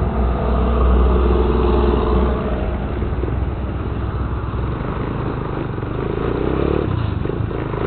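Motorcycle engine pulling away and accelerating, heard from the rider's helmet camera. Its note climbs as it picks up speed from about six seconds in.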